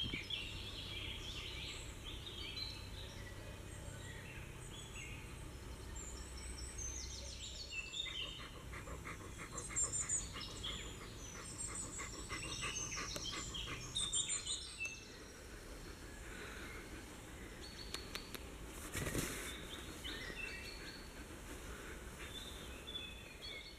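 Several wild birds singing and chirping in woodland, many short rising and falling calls overlapping, with a fast repeated trill in the first half. A brief rustle a little past the middle.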